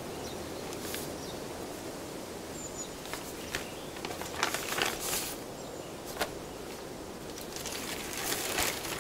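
Paper rustling and crackling as a letter is taken out of its envelope and unfolded, in a few short bursts, the fullest about halfway through and again near the end, over a steady faint background ambience.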